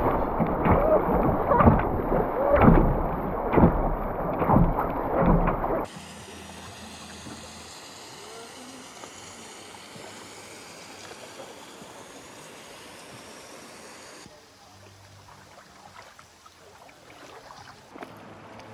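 River water rushing and splashing around a canoe running a rapid, loud and choppy with dull slaps, muffled in the highs. About six seconds in it cuts to a much fainter, steady hiss of calm river water.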